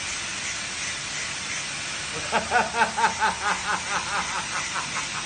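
A man laughing: starting about two seconds in, a run of quick pitched laugh pulses, about five a second, that fade away over nearly three seconds. A steady background hiss runs under it.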